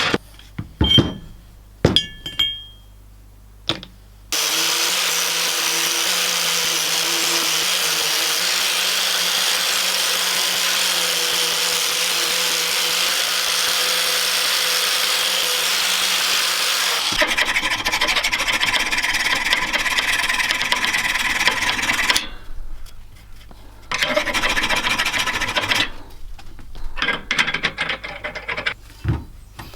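A handheld power tool abrading rusty metal. It runs steadily for about thirteen seconds, changes tone for several more seconds, then comes in shorter bursts near the end, after a few short knocks at the start.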